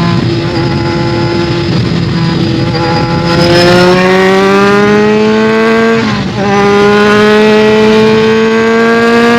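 BMW K1200S inline-four through a Delkevic aftermarket exhaust, riding under load. The note holds steady at first, then rises as the bike accelerates from about three seconds in, drops briefly at a gear change about six seconds in, and climbs again in the next gear. It is heard muffled, from a phone in the rider's pocket.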